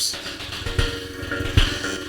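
Electronic backing music from a generative modular synth patch: held synth tones and short blips over a soft kick-drum thump about every 0.8 seconds.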